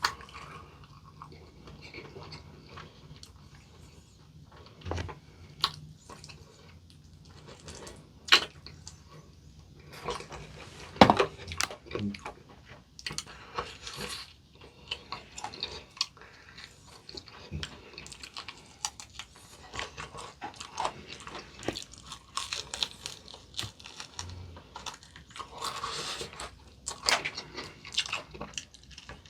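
Close-up biting and chewing of crispy fried chicken in a potato crust, a run of sharp crunches with the loudest bites about 8 and 11 seconds in.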